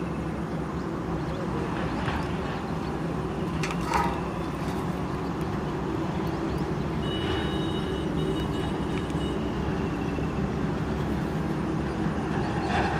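A steady low engine drone, with a few sharp clicks and taps over it, the loudest about four seconds in.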